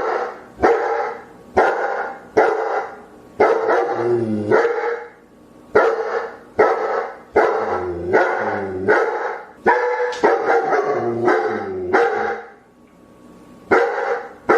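A dog barking over and over, roughly one bark every three-quarters of a second, in runs broken by two short pauses.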